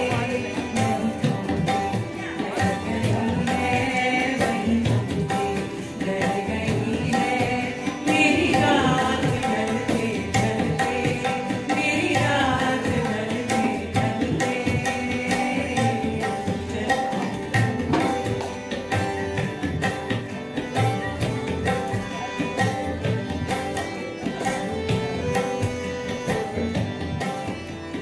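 Live music led by tabla drumming, with harmonium and acoustic guitar accompanying singing.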